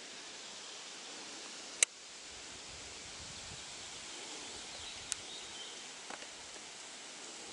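Forest ambience: a steady, even rustle of wind in the leaves with faint bird calls. A sharp click, the loudest sound, comes about two seconds in, and a smaller click about five seconds in.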